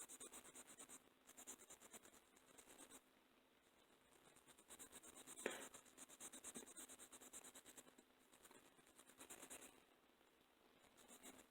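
Faint scrubbing on a metal HO-scale locomotive chassis being cleaned, in several bursts of quick scratchy strokes, with one sharp click a little before halfway through.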